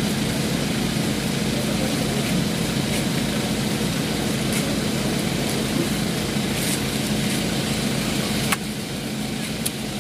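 An engine idling steadily, with a sharp click about eight and a half seconds in, after which it is slightly quieter.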